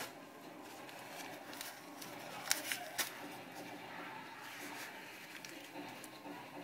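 Tissue paper wrapping rustling faintly as it is handled, with a few sharp crinkles about two and a half to three seconds in.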